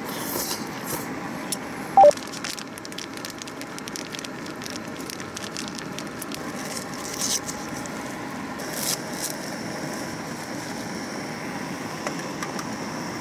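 Cooking sounds at a single-burner gas stove: clicking and crackling as ingredients go into the metal pot, over a steady hiss. One sharp clink about two seconds in, and brief rustles later.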